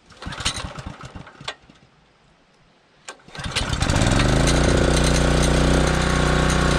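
Portable gasoline generator pull-started on choke from cold. The first pull turns the engine over without catching. On a second pull about three and a half seconds in it catches and settles into a steady run.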